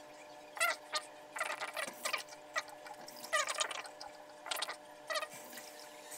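Disposable razor scraping short hair off a scalp in a series of short strokes, each a brief crackly rasp, roughly a second apart, over a faint steady hum.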